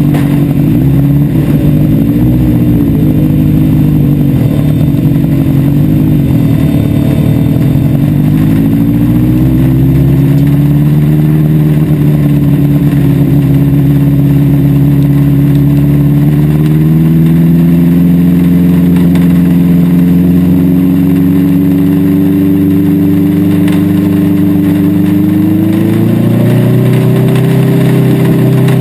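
Motorcycle-engined dwarf race car's engine heard from on board, running at low speed with the revs wavering up and down, then climbing about a third of the way in and holding higher, with a short drop and climb again near the end.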